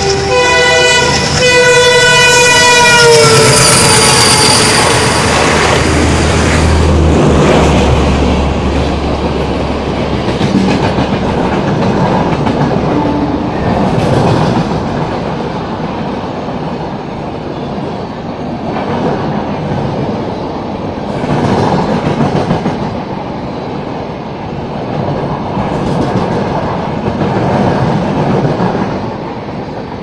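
Indian Railways electric locomotive horn sounding a long note, its pitch dropping about three seconds in. It is followed by the continuous rumble and clickety-clack of LHB passenger coaches running past on the near track, swelling and easing as the coaches go by.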